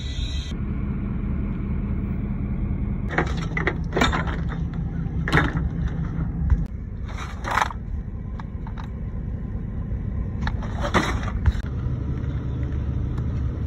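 Vehicle engine running steadily with a low rumble, with several short knocks and scrapes from parts being handled close to the microphone.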